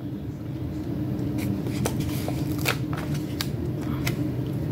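Paper planner sticker being peeled off its backing sheet and handled: papery rustling with several sharp crinkles, over a steady low hum.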